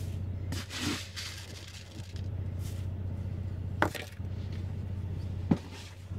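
Dry rolled oats poured and scooped with a measuring cup into a plastic mixing bowl, in short rustling pours with scraping. Two sharp knocks stand out, one near the middle and a louder one near the end, over a steady low hum.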